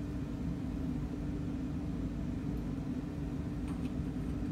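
Steady low rumbling hum of a running machine, with a couple of faint light clicks about four seconds in.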